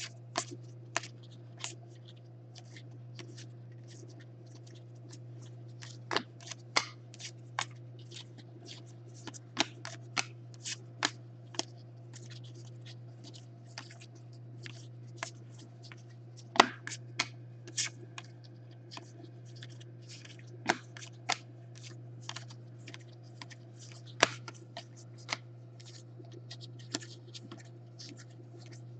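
Stack of Panini Contenders football trading cards being flicked through by hand, each card slid off the pile with a short sharp snap at irregular intervals, sometimes several a second. A low steady hum runs underneath.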